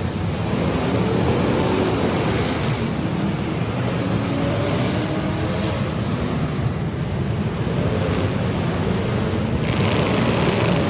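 Demolition derby car engines running and revving, rising and falling in pitch over a dense, continuous roar, with a brighter rush of hiss about ten seconds in.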